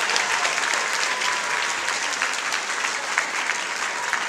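Audience applauding: many hands clapping in a dense, even spread, easing slightly toward the end.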